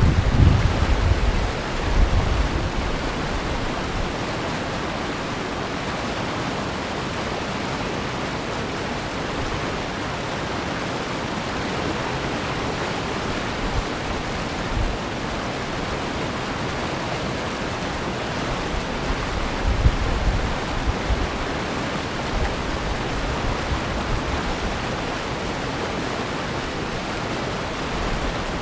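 River rapids rushing over rocks: a steady, even roar of whitewater. Low wind gusts buffet the microphone in the first couple of seconds and again briefly about twenty seconds in.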